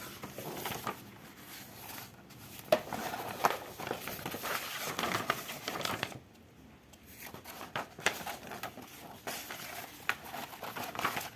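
Packaging from an RC car kit being handled, crinkling and rustling with scattered sharp clicks, and a brief lull a little past halfway.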